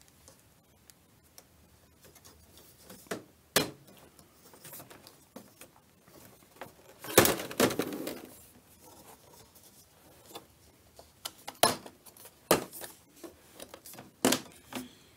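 Irregular sharp plastic clicks and knocks as the front bezel of a Samsung LED TV is prised off its back casing and the set is handled, with the loudest, a longer clatter, about seven seconds in.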